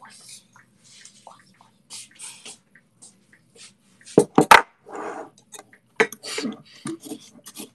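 Kitchen handling sounds: scattered clicks, a cluster of loud knocks about four seconds in as a ceramic sugar canister is brought up and set down, then a metal spoon scraping and scooping in the sugar canister.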